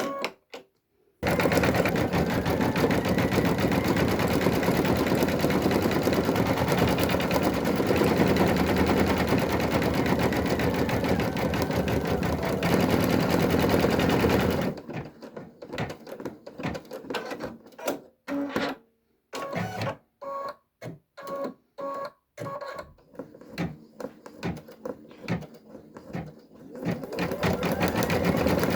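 Brother Innovis V3 embroidery machine stitching with a fast, steady needle clatter, then, about a quarter of a minute in, running in short stop-start spells with brief pauses before settling into steady stitching again near the end.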